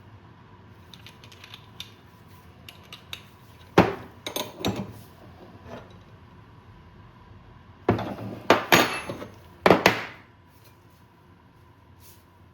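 Metal tools and parts clinking and clanking as they are handled on a workbench. There are light clicks at first, then two bursts of louder knocks and clanks, about four seconds in and again around eight to ten seconds.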